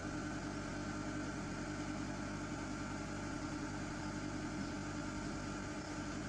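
A heavy machine's engine idling steadily, a constant low hum and drone with no change in speed.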